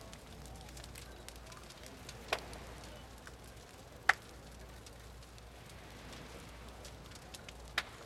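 A large wooden boat burning in a bonfire: a steady crackling hiss, broken by three sharp, loud cracks, about two seconds in, four seconds in and near the end.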